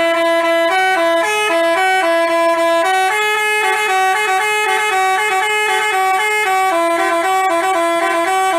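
Telolet basuri multi-trumpet bus horn playing a tune: several tones sound together as a chord, stepping between notes a few times a second.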